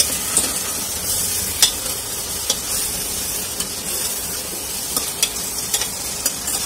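Mutton sizzling as it fries in a pressure cooker with a spoonful of water added. A metal spoon stirs it, scraping and clicking against the pot now and then.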